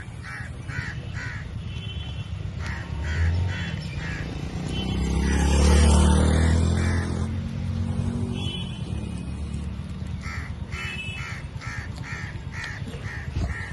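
Crows cawing in quick runs of short, repeated caws, several in a row, near the start and again over the last few seconds. A low rumble swells and fades in the middle.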